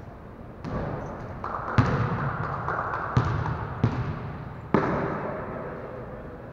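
Basketballs bouncing with hollow thuds, five hits a second or so apart, echoing in a large gym.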